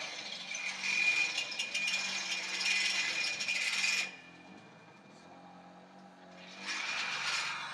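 An electric power tool cutting iron, making a harsh, high grinding sound with a steady whine. It stops suddenly about four seconds in and starts again near the end.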